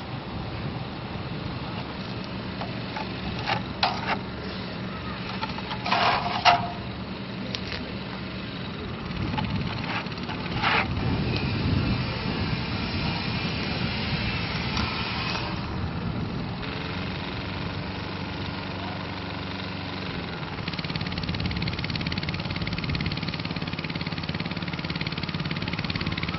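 An engine running steadily, with a few short sharp scrapes and knocks about four, six and eleven seconds in, the loudest near six and a half seconds.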